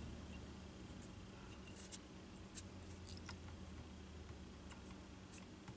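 Faint handling at a fly-tying vise: scattered soft ticks and clicks as dubbing is worked onto the thread and wrapped on the hook, over a low steady hum.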